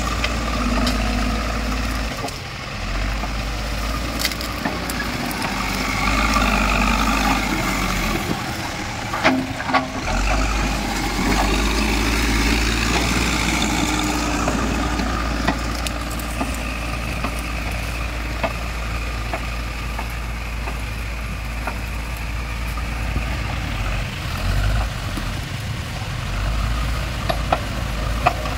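Backhoe loader's diesel engine working under load as its front bucket pushes through brush and scrapes the ground, with scattered sharp cracks, a cluster of them about a third of the way in.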